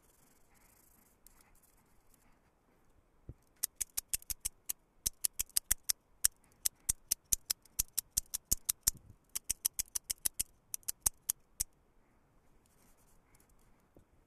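Freshly repaired Microtech Ultratech out-the-front automatic knife being fired and retracted over and over: a run of sharp metallic clicks, several a second, in bursts over about eight seconds, starting a few seconds in.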